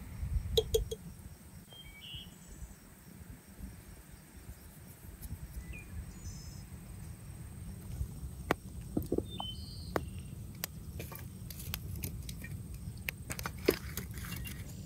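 A metal skimmer clinks a few times against an aluminium pot, then a wood fire crackles with scattered sharp snaps over a low rumble. One louder knock comes near the end.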